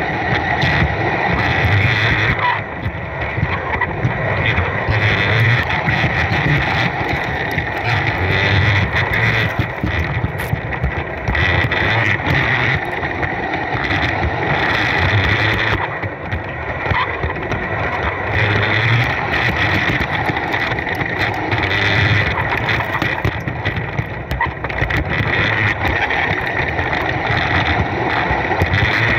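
Bachmann G-scale Percy model locomotive running steadily along garden railway track: the whine of its electric motor and gears, with frequent clicks from the wheels on the rails, heard from the wagon it is pulling.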